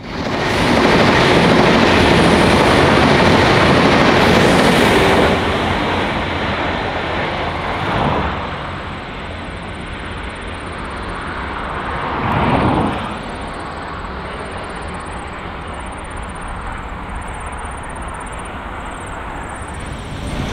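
V/Line VLocity diesel railcar train running on the line, loudest for the first five seconds, then steadier and quieter, with two brief swells of noise later on.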